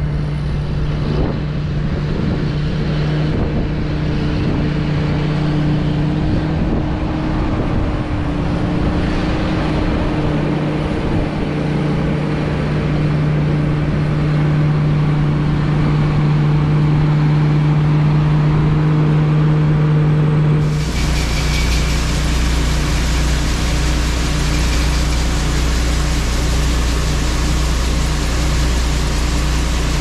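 John Deere 8530 tractor's diesel engine running at a steady speed, a constant droning hum with the grain cart's unloading auger working. About two-thirds of the way through, the sound changes abruptly to a closer, fuller one with a deep low rumble as the auger pours corn into the trailer.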